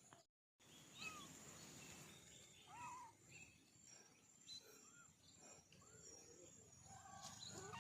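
Faint, short, high-pitched kitten mews, several in a row at irregular spacing. The sound drops out to silence for a moment near the start.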